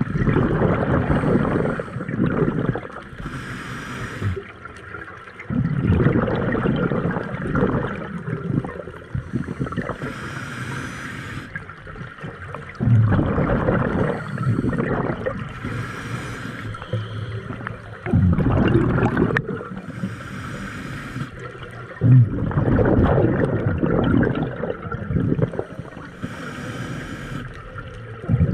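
Scuba diver breathing through a regulator underwater: a hiss through the demand valve on each inhale, then a gurgling rumble of exhaled bubbles, about one breath every five seconds.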